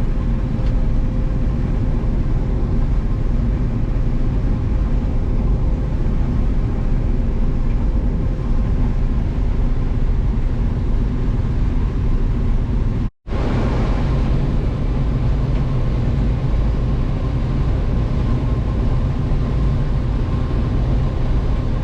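Combine harvester running steadily while harvesting corn with its corn head: a constant engine hum under an even mechanical roar of the machine at work. The sound drops out completely for a split second about thirteen seconds in, then carries on the same.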